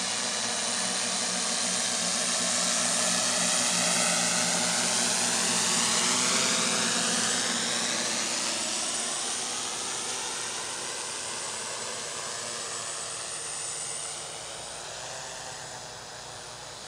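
Tarot 650 X8 octocopter's coaxial propellers buzzing in flight as it flies away, loudest a few seconds in and then fading steadily toward the end, with a slowly sweeping, phasing quality to the sound.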